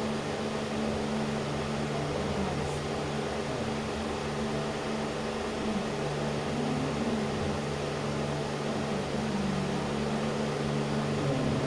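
Steady hum of a small electric motor, running evenly with a few steady low tones in it.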